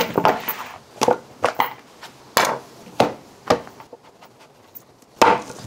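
Knife chopping on a wooden cutting board: a string of about nine sharp knocks at uneven intervals, some ringing briefly.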